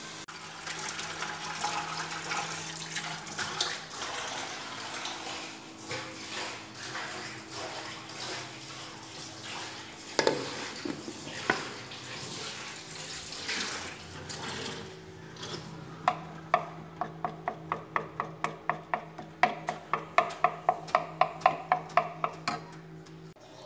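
Cooking-pot clatter and liquid noise from a pan on the stove, over a steady low hum. About 16 seconds in this gives way to a metal spoon clinking rhythmically against a ceramic bowl, about three clinks a second, as yogurt is whisked.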